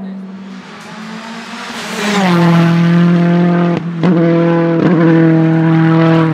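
The tuned turbocharged TFSI engine of a VW Golf Mk2 Rallye hillclimb car running hard as the car climbs towards the listener, growing much louder about two seconds in. The note cuts out twice, about a second apart, with a sharp crack each time: upshifts with backfires.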